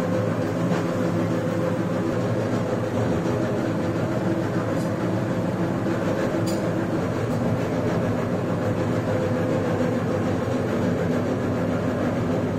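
Belt-driven electric dough mixer running steadily, its hook arm churning flour and water into dough in a stainless steel bowl. It makes a constant motor-and-drive hum.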